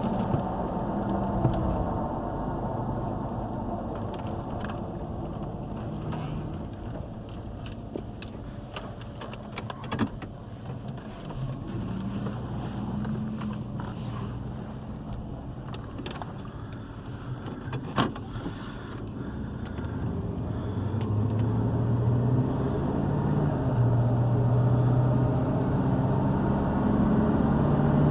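Car driving, with engine and road noise heard from inside the cabin and a couple of sharp clicks. In the last third the engine hum grows louder and steadier as the car picks up speed.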